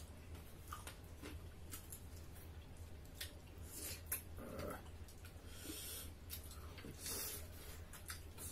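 Eating sounds at the table: wet lip smacks, chewing clicks and a few short slurps as chicken is sucked off the bone and fingers are licked.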